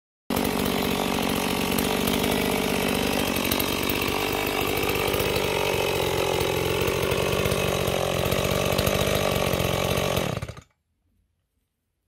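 Two-stroke chainsaw engine running steadily, its pitch wavering slightly, then cutting off abruptly about ten and a half seconds in.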